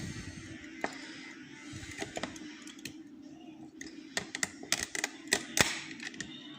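Metal lock picks and tension tool clicking and scraping against the levers inside an ERA five-lever curtained lock, with scattered sharp clicks that come thicker and louder about four to six seconds in.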